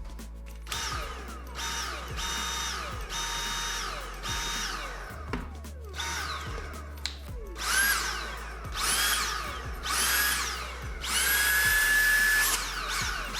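Dyson V8 cordless vacuum cleaner's motor switched on and off about ten times in short runs, each spinning up to a steady high whine and winding down after release. The repaired battery with its replacement BMS board is powering the vacuum normally. The last run, near the end, is the longest and loudest.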